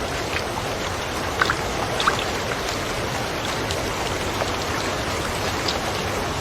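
Steady rush of falling and running water from a waterfall, with a few short, higher plinks of drops now and then.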